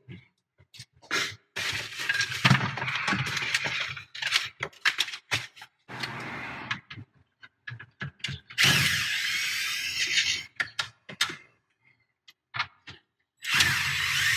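Clicking and rattling of wire harnesses and plastic parts being handled, then a cordless drill/driver running in two short spells, about a second and a half each, the second near the end, driving screws into the dash's radio mounting bracket. Its pitch rises and falls with the trigger.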